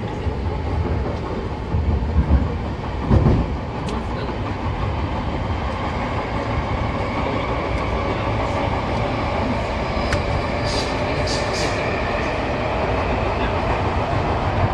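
Tokyo Metro 6000 series subway train running, heard from inside the car: a steady rumble of wheels on rail with two heavy thumps about two and three seconds in. A faint whine rises slightly through the second half.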